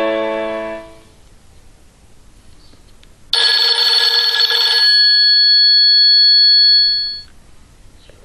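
Nokia 6124 classic ringtones: one ringtone fades out in the first second, and about three seconds in another starts abruptly, a bright cluster of tones for about a second and a half, then a few high tones that ring on and fade out.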